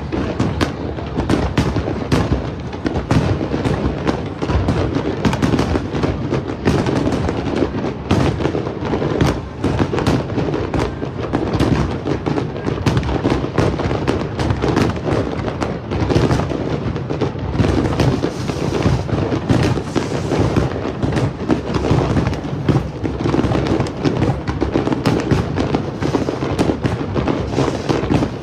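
Aerial fireworks going off in a dense, continuous barrage of rapid bangs and crackles, with no break.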